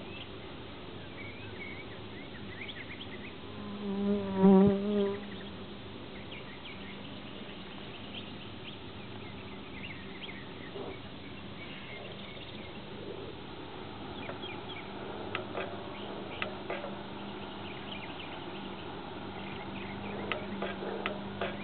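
Honeybees buzzing over an open hive, a steady hum, with one louder buzz about four seconds in, lasting around a second, as a bee passes close by.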